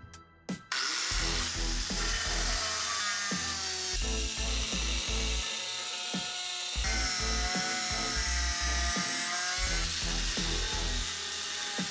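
Angle grinder's cutting disc grinding through a steel saw blade, a harsh hiss with a whine whose pitch sags and recovers as the disc bites, starting about a second in. Background music with a steady bass beat plays under it.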